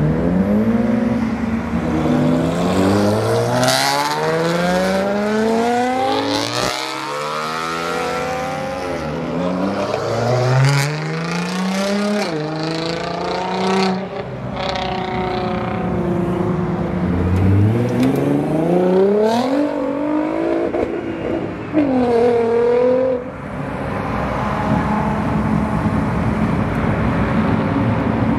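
Sports car engines accelerating hard one after another, a Ferrari 360 among them, each revving up in rising sweeps with drops at the gear changes. A steady engine drone fills the last few seconds.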